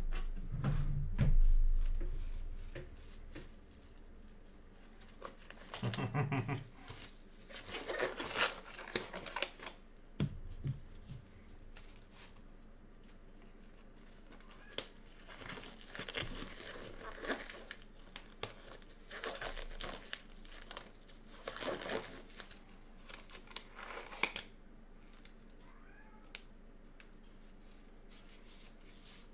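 Intermittent crinkling and rustling of plastic packaging being handled, in several separate bursts, with a heavy low thud about a second in.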